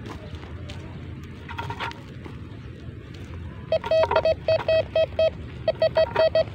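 Metal detector giving a run of short, high beeps of one pitch, about five a second, as its search coil is held over a pile of freshly dug soil, signalling a metal target in the dirt. The beeps stop briefly and start again near the end.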